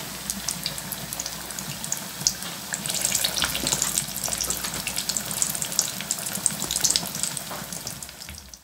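Hot oil sizzling around dough patties deep-frying in a steel pan, with a dense crackle of small pops. It grows louder about three seconds in and fades out just before the end.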